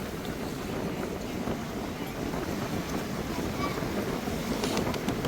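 Wind buffeting the microphone in a steady, low rush, with the wash of surf behind it.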